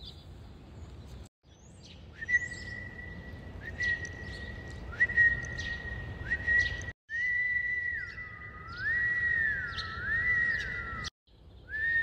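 Wild birds chirping with short high calls while a woman whistles along to them: held whistled notes at first, then a slow whistled tune sliding up and down between two pitches. The sound cuts out abruptly three times for a moment.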